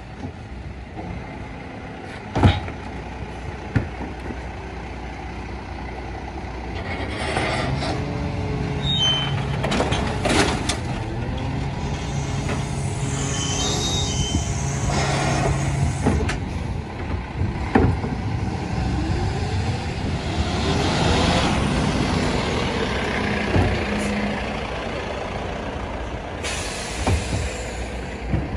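Rear-loader garbage truck working: its engine and hydraulic bin lifter run with a steady hum while a wheelie bin is lifted and tipped into the hopper, with a few sharp knocks of bins against the lifter.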